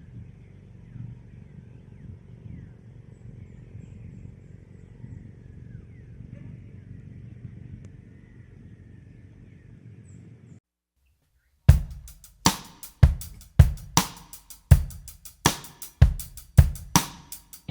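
Faint outdoor ambience, a low rumbling haze with a few faint bird chirps, cuts off abruptly about ten seconds in. After a second of silence, background music starts with a steady drum beat, about two hits a second.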